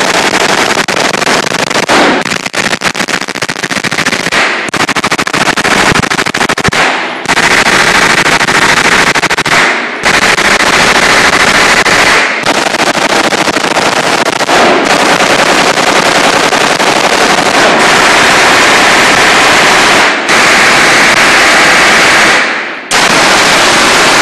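Several 9 mm H&K MP5 submachine guns firing full-auto in long overlapping bursts. The shots run together into a near-continuous stream, broken by a few brief pauses, and are loud enough to overload the recording.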